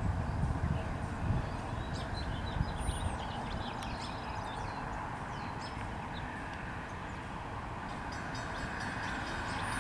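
Amtrak Crescent passenger train approaching from a distance: a low, steady rumble that grows louder over the last few seconds, with a faint high ringing joining in near the end.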